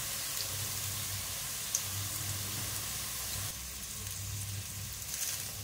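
Hot oil sizzling steadily in an aluminium pot of golden-brown fried onion slices, with a low hum underneath.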